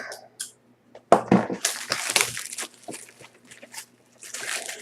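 Crackling, crunching packaging as a sealed trading card box is torn open by hand, in two spells with scattered clicks between.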